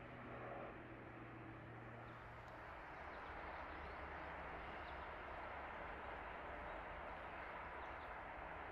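River water flowing steadily. A low rumble comes in about three seconds in and holds beneath it.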